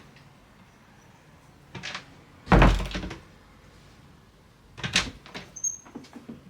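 Interior door and its newly fitted lever handle and latch being worked: a few sharp knocks and clicks, with one heavy, deep thunk about two and a half seconds in.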